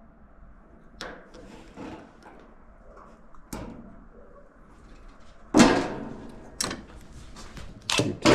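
Knocks and clunks of sheet-metal dryer panels and parts being handled, with a few light clicks early and one loud clunk about five and a half seconds in.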